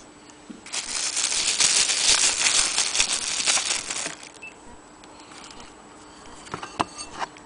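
Plastic sheeting crinkling and rustling as it is handled for about three seconds, then a few light clicks and knocks near the end.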